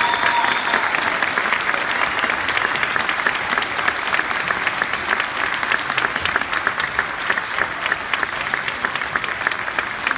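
Audience applauding, a dense patter of clapping that slowly thins and grows a little quieter towards the end.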